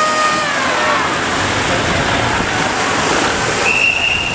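Loud, steady rushing of churning water around boats at a canal sluice gate, with a short high tone near the end.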